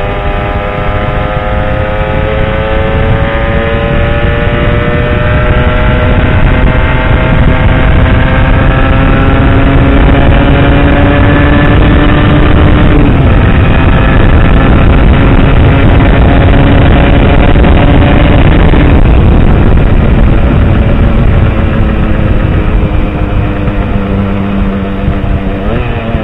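Aprilia SX125's two-stroke single-cylinder engine heard from its on-board mic under load, pitch slowly rising as it pulls, dipping slightly about 13 seconds in, then holding before easing off with falling pitch near the end, over heavy low rushing noise.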